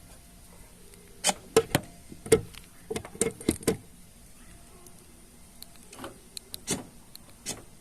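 A series of sharp clicks and knocks from a 2017 Honda Civic's fuel filler door and its new lock actuator being operated. They come in a quick cluster early on and a few more near the end, working cleanly without any strange noise.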